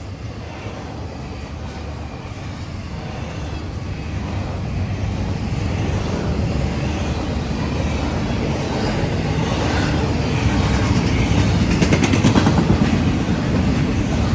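Diesel locomotive leading a freight train as it approaches, its low engine rumble growing steadily louder, with some clicking and clatter near the end.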